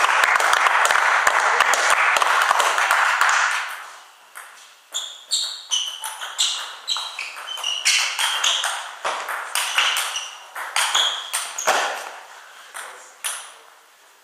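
Clapping for the first three and a half seconds. Then a table tennis rally: the celluloid ball clicks off the table and the rubber bats at about two hits a second, until it stops shortly before the end.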